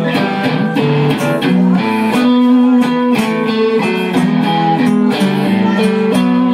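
Live blues on Stratocaster-style electric guitar and acoustic guitar, with no singing: the electric guitar plays a line of single notes, several of them held, over the acoustic guitar's accompaniment.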